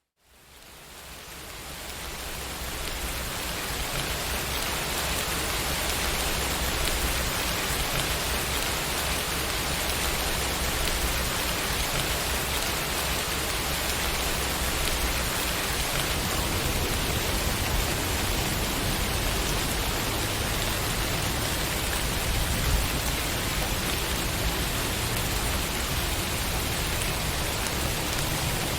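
Steady rain falling, an even hiss that fades in from near silence over the first few seconds.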